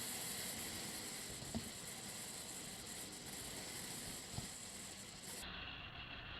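Steady hiss of wind and road noise from a moving motorcycle, picked up by a helmet-mounted camera, with two faint clicks, one about a second and a half in and one near the end. Shortly before the end, the high part of the hiss drops away suddenly.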